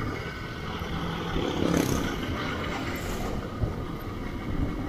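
Motorcycle engine running while riding along a road, mixed with wind and road noise. Two brief hissing swells come about two and three seconds in.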